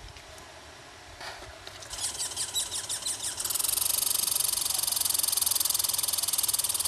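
American red squirrel calling: a few sharp chirps from about two seconds in, then from about three and a half seconds a louder, very rapid rattling trill that keeps going.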